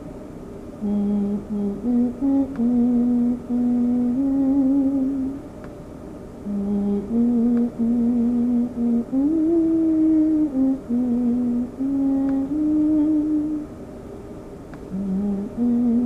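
A person humming a slow melody without words: held notes stepping up and down with a slight waver, in phrases separated by short pauses.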